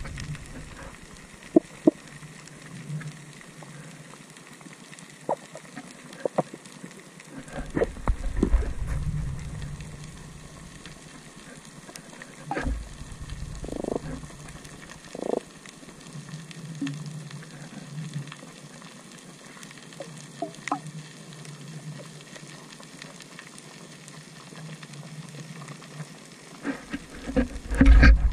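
Underwater sound picked up by an action camera on a pole: a steady faint crackle dotted with scattered sharp clicks, with a few low muffled thumps from water moving against the camera as it is handled.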